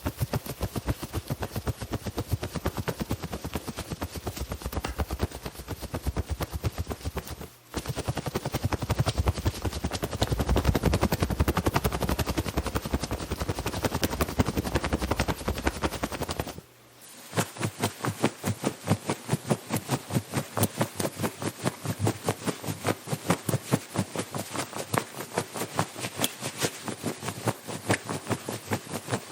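Comic cartoon running sound effect: rapid, evenly repeated footfalls with rustling clothes, played as three takes with two short breaks.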